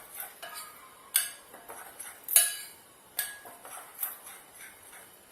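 A utensil clinking and scraping against a mixing bowl while stirring a dry flour mixture, with several sharp ringing clinks, about four of them louder.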